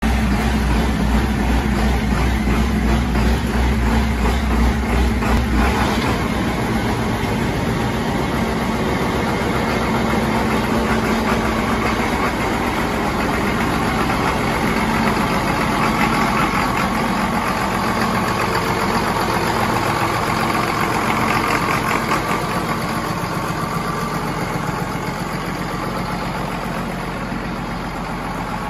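John Deere 7810's 8.1 L six-cylinder diesel engine running at idle after its cam gears were repaired, with a deep low rumble that drops away about six seconds in before it settles into a steady idle.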